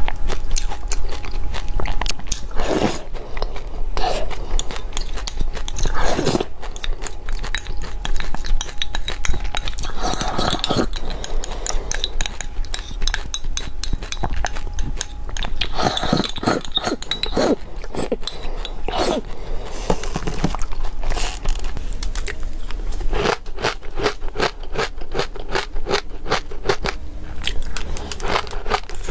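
Close-miked eating: crunchy chewing of seeds mixed into yogurt, with a metal spoon scraping and clicking against a glass cup. Rapid crackling clicks come thickly in the last few seconds.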